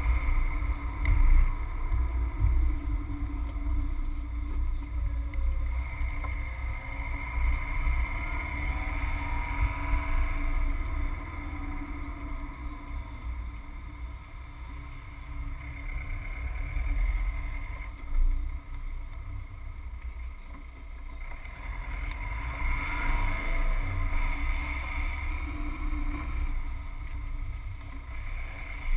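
Subaru Forester driving, heard from inside the cabin: a steady low rumble of its flat-four engine and tyres on the road, with faint higher tones that drift in pitch now and then.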